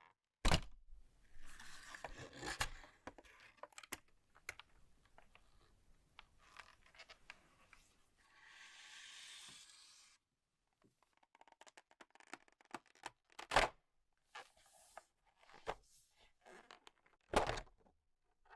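Unboxing handling sounds: cardboard and plastic packaging scraped, rustled and torn by hand, with a few sharp knocks as the box is handled, the loudest just after the start and near the end.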